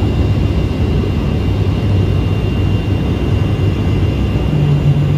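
Airliner engines and rushing air heard from inside the passenger cabin, a steady loud drone, with the flaps lowered near the runway. A second low hum joins in about four and a half seconds in.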